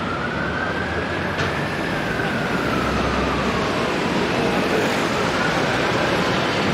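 Busy city-junction traffic: double-decker buses' engines running and a steady wash of road noise, with crowd voices mixed in. A faint wailing siren slowly rises and falls twice over it.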